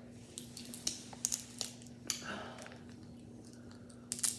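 Close-up eating sounds of crab: chewing with scattered small clicks and crackles from the shell, the loudest cluster near the end. A faint steady hum sits underneath.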